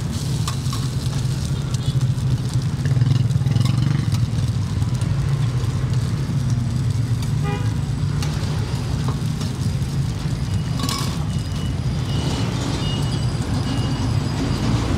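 Steady rumble of street traffic, with a horn sounding briefly about halfway through. Over it, a metal spatula scrapes and clinks against the griddle and a china plate.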